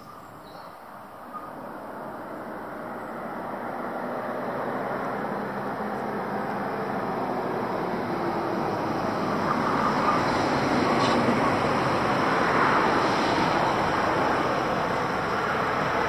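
A motor vehicle on the road, its engine and tyre noise growing gradually louder as it approaches over about twelve seconds, then easing off slightly near the end.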